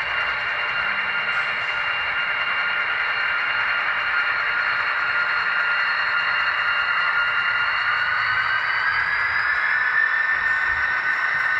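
ScaleTrains GP30 model diesel locomotives and boxcars running along the track: a steady rolling rush with a high whine that rises in pitch about eight seconds in.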